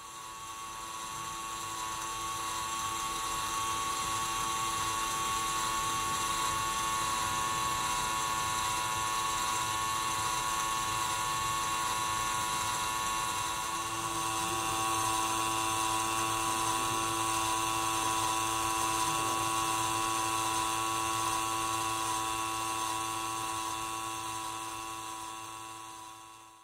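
Small electric motor running a Tucher & Walther T 556 tin-toy scythe-peening model, a steady high whine with its gear train turning. Its tone shifts slightly about halfway through.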